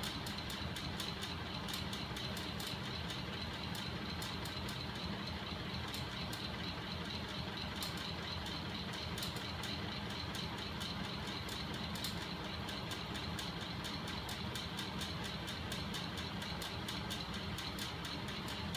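Homemade neodymium-magnet crank engine driven by 12 V DC electric motors, running steadily: a constant mechanical whir with several sharp clicks a second from the moving linkage.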